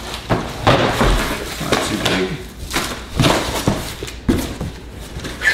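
A cardboard box and its shredded-cardboard packing being handled and pulled apart: a quick string of rustles, scrapes and crinkles, about two a second.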